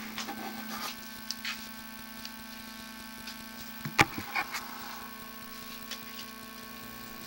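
Steady electrical hum with a few light clicks and one sharp knock about four seconds in, from the sewer inspection camera rig being handled.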